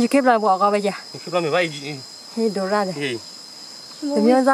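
Insects shrilling in one steady high tone, under voices talking in short phrases several times, which are louder.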